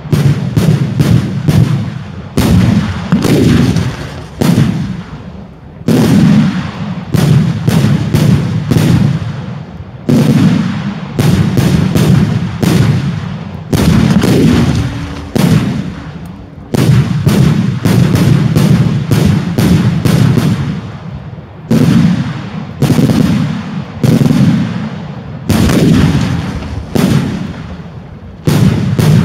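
Daytime fireworks display: loud firework bangs fired in rapid volleys, several a second, with short lulls between volleys and a heavy low rumble after each burst.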